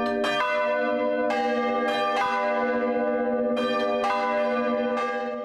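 Bronze church bells swinging and ringing together, at least two of them. Clapper strikes come at uneven, overlapping intervals over a long ringing hum, and the sound dies away near the end.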